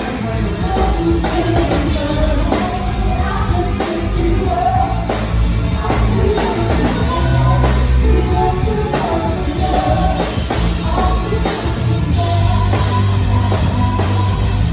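Live band playing a steady groove: drum kit beat over a strong bass line, with melodic lines from the horns, keys or voices above.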